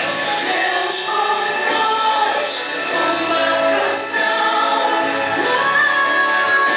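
Gospel song with a group of voices singing together over instrumental backing.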